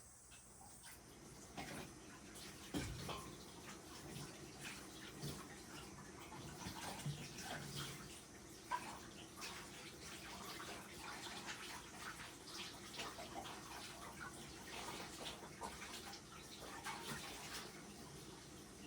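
Dishes being washed by hand at a kitchen sink: a tap running faintly, with frequent small clinks of dishes and cutlery and a single thump about three seconds in.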